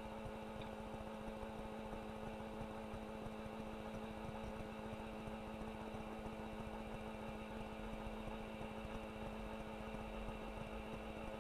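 Steady electrical hum with hiss: a few fixed tones over even noise, unchanging throughout, with no other sound.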